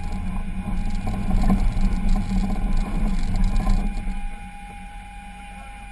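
Off-road vehicle's engine pulling under load as it crawls over rocks, with a few knocks, then easing off about four seconds in to a quieter steady run.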